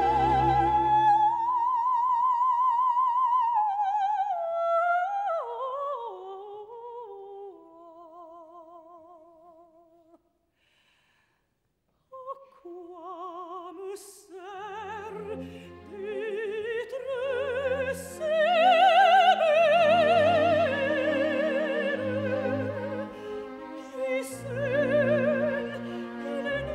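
Operatic soprano singing with wide vibrato. A slow phrase steps down in pitch and fades away about ten seconds in. After a short silence she begins again over soft, sustained low accompanying chords and builds to a loud, high passage.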